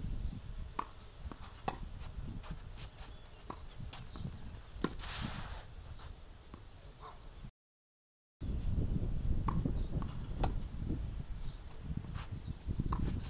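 Wind rumbling on the microphone, with scattered light clicks and knocks at irregular intervals. The sound cuts out completely for about a second just past halfway.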